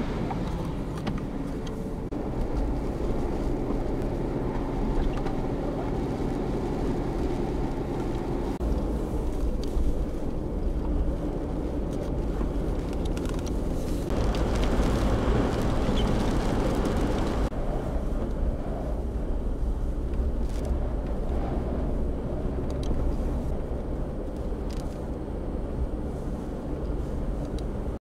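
Car driving on a snow-covered road, heard from inside the cabin: a steady low engine and road rumble, with a louder rushing noise for about three seconds midway.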